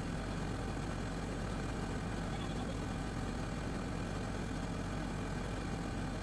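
Schramm 450WS drilling rig's diesel engine running steadily while the rig's top head slowly turns a newly installed floating sub.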